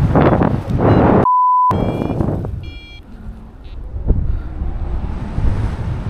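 Wind rushing over the microphone in flight. A little over a second in, it is cut by a steady 1 kHz bleep of about half a second with all other sound muted under it. A few short electronic beeps from a paragliding variometer follow, then a single sharp knock.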